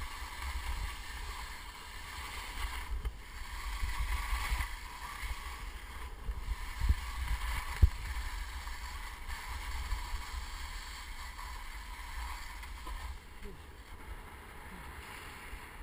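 Hiss and scrape of gear sliding fast over firm, crusted snow on a downhill run, with wind rumbling on the microphone. A sharp knock stands out about eight seconds in.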